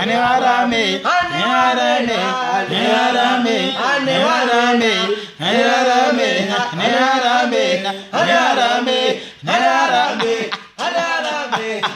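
A man singing unaccompanied: a chant-like devotional melody with long, wavering held notes, broken by short pauses for breath.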